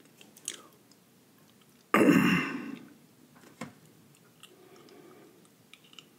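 A man's sudden loud burst of breath about two seconds in, fading within a second, with a few faint clicks around it.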